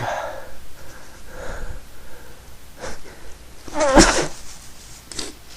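A person sneezing once, loudly and suddenly, about four seconds in, with two smaller sniff- or breath-like bursts around it.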